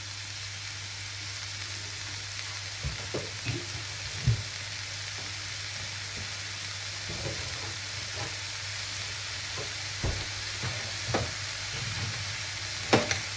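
Sliced mushrooms and onions sautéing in a frying pan, sizzling steadily, with scattered short knocks and scrapes of a wooden spatula stirring them.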